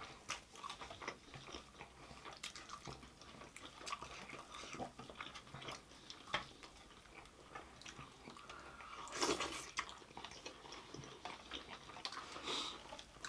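Faint close-up eating sounds: chewing, with small wet mouth clicks and crunches scattered throughout, and a short hiss about nine seconds in.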